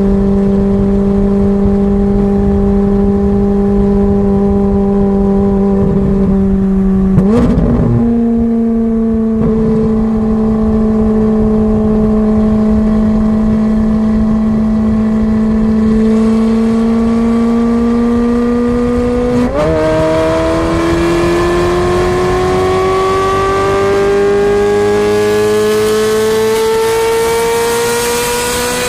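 Ferrari 430 Scuderia's straight-piped 4.3-litre V8 exhaust running at a steady note. The note breaks and steps up about seven seconds in, then drops about twenty seconds in, and the revs climb steadily after that.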